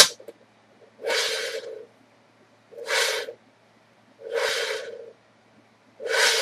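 Homemade linear slide carriage's bearings rolling along a metal rail as it is pushed back and forth by hand: four rolling runs of under a second each, with a sharp click right at the start.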